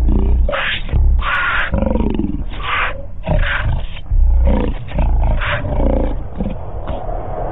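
Two lions growling over a cheetah carcass as they feed: a run of repeated loud growls, one after another, with a deep rumble underneath.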